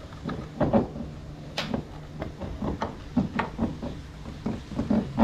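Irregular clunks, knocks and light rattles of metal parts and tools being handled in a car's engine bay, with one sharp click about a second and a half in.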